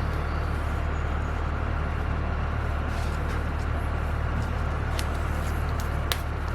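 A steady low mechanical hum runs throughout, with two sharp clicks about a second apart near the end.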